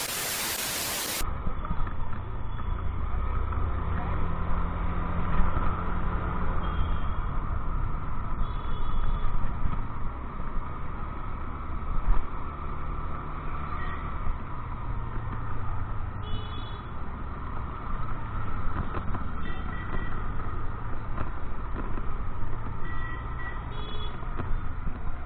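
Wind buffeting the microphone over a scooter riding along the road, a steady low rumble with the engine and traffic underneath. Brief high beeps sound several times, and a burst of hiss fills the first second.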